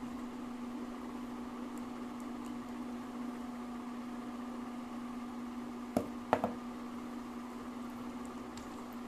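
A steady low hum throughout; about six seconds in, a knock and two or three short ringing clinks as a glass serving bowl is set down on a wooden table.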